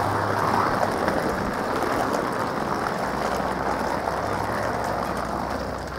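Wheeled suitcases rolling over brick pavement, a steady noisy rumble.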